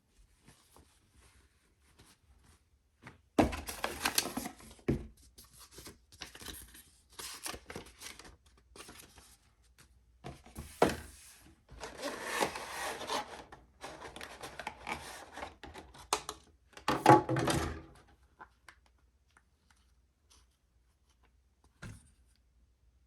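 Goggle packaging being handled and opened: irregular bursts of rustling and scraping over about fifteen seconds, then a single click near the end.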